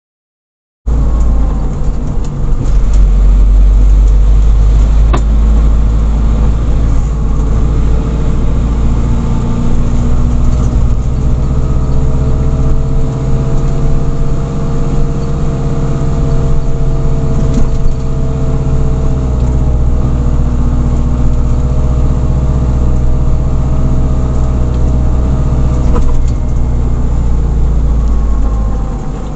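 A vehicle's engine and road noise heard from inside the cab while driving: a steady low rumble with a faint engine drone whose pitch slowly rises and falls. It starts about a second in.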